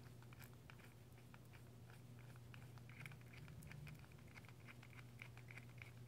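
Faint, irregular small clicks and scrapes as a Phillips head screw is turned finger tight into the metal body of an LI-6400 chemical tube, over a steady low hum.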